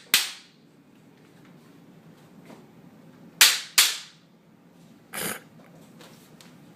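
Sharp, loud whacks of a bamboo kendo shinai in a small room: one right at the start, then two in quick succession about three and a half seconds in, each with a brief ringing tail. A softer short puff of noise follows about five seconds in.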